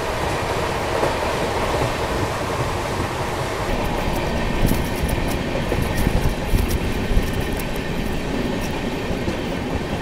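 Double-decker express train running at speed: a steady rumble and rushing noise of the coaches on the track. From about four seconds in, a run of sharp clicks from the wheels on the track joins it.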